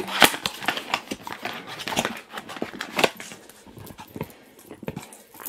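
Irregular clicks, taps and rustling as a small cardboard advent-calendar box is handled and opened, with a husky mouthing and chewing a rubber snack-octopus toy. The sounds are busiest in the first three seconds and thin out after that.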